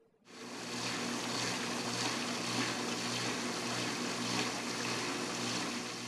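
Water sloshing and splashing inside a running GE dishwasher, the spray arms throwing water against the inside of the tub and door. It is a steady wash of sound over a low, even hum. It fades in just after the start and fades out at the end. This is a normal wash-cycle sound, not a fault.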